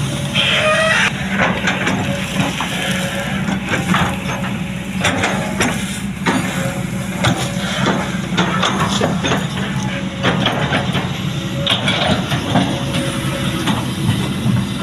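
Kobelco SK200 excavator's diesel engine running steadily under load, with repeated knocks, cracks and scrapes as it works earth and a block into a ditch, and a brief high squeal about half a second in.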